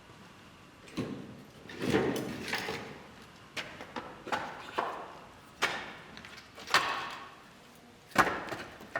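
A series of irregular knocks and clatters of hard objects being handled and set down, about ten in all, each with a short ringing tail.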